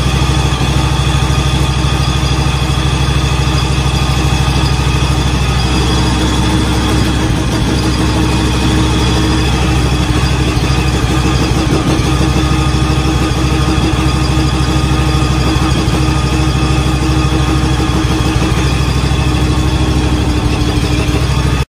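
John Deere X724 lawn tractor's V-twin engine idling steadily after a cold start at −40°C. The sound cuts off abruptly near the end.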